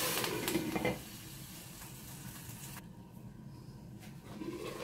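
A glass lid clinks onto a pot, then the rice inside sizzles softly as the last of its cooking water boils off, a sign the pulao is nearly dry and ready for its low-flame steaming (dum). The sizzle drops quieter about a second in.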